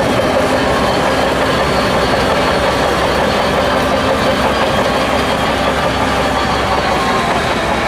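Shantui DH17C2 crawler bulldozer working: its diesel engine runs steadily under load while the steel tracks clatter.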